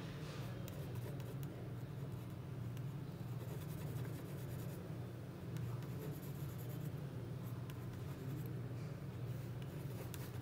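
Light scratching and small ticks from a hand tool working at a surface, over a steady low hum.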